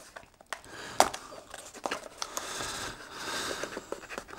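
A small cardboard box being handled and opened by hand: a few sharp taps and knocks, the clearest about a second in, then a couple of seconds of cardboard rustling and scraping.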